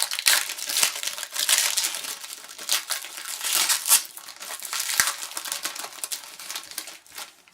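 A hockey card pack wrapper being torn open and crinkled, a dense crackle that goes on for about seven seconds, with a sharp click about five seconds in.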